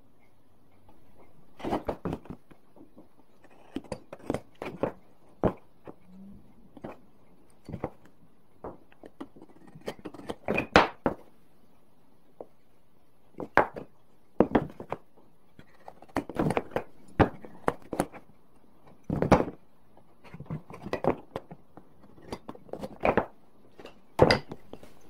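Square pine sticks and hand tools being picked up and set down on a wooden workbench during marking out: irregular sharp wooden knocks and taps, often a second or so apart.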